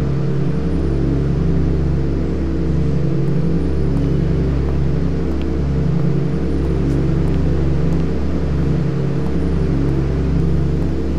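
Low, droning soundtrack bed: a deep rumble with layered low tones that repeats in a slow cycle about every three seconds.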